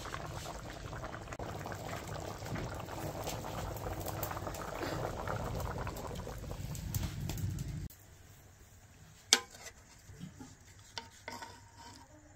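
Fish curry boiling hard in a large metal pot, with a steady dense bubbling. About eight seconds in the bubbling cuts off abruptly, and the quieter part that follows holds one sharp clack and a few lighter clinks of a metal ladle against the pot.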